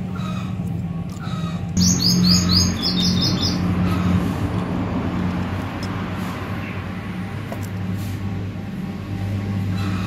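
A small bird chirps a quick run of about eight falling notes starting about two seconds in, over a steady low hum and a constant background hiss.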